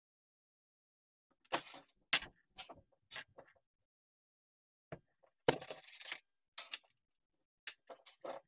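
Small clicks, taps and rustles of hands handling jumper wires and circuit boards on a tabletop, as the wire ends are pushed into header pins and a mini breadboard. About ten short clicks and taps come in uneven succession, with one longer scraping rustle about halfway through, and there is dead silence between them.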